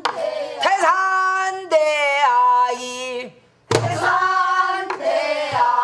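Singing voices carrying a Korean danga phrase unaccompanied, then a single stroke on a buk barrel drum about four seconds in, and the singing starts again.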